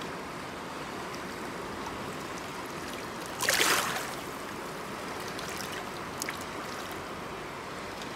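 River water flowing and lapping steadily around boulders at the bank, with a brief splash about three and a half seconds in as a hand handles a caught fish at the water's edge.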